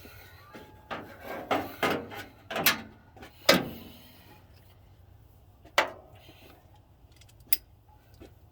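Hand tools being handled and set down, a run of clanks and rattles over a few seconds, then one more clank and a faint click.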